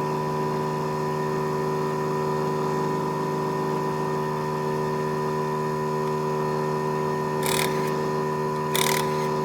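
A steady, unchanging droning hum, with two short hissing bursts near the end.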